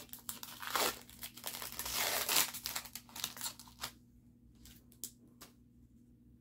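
Foil wrapper of a Topps trading card pack being torn open and crinkled for about four seconds, followed by a few light clicks and rustles.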